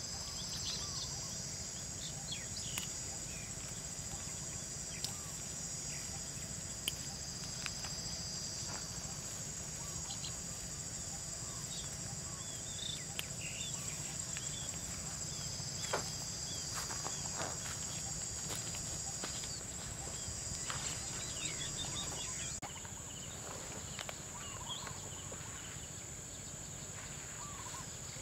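Outdoor insect chorus ringing steadily in a high band, changing character about three-quarters of the way through, with scattered short bird chirps. A few light clicks and rustles come as leafy plants are picked by hand.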